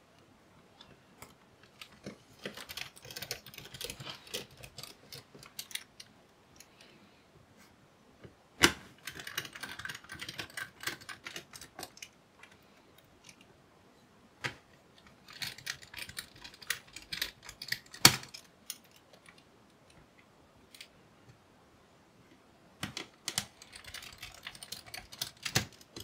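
Small screws being driven back in with a precision screwdriver to secure the battery in a Dell Precision 3561 laptop: four separate bursts of quick, light clicks and ticks a few seconds apart, one for each screw, with an occasional sharper click.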